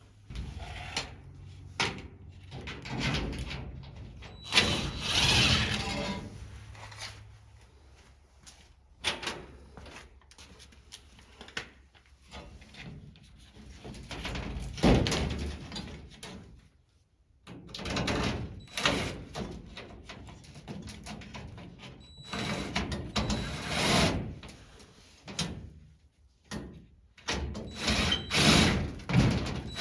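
Hand work on a race car's plastic body panel: irregular knocks, thuds and scraping, with short noisy bursts lasting a second or two.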